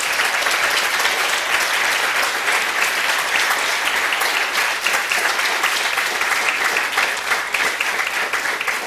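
Lecture-hall audience applauding steadily, a dense patter of many hands clapping at the close of a talk, fading just after the end.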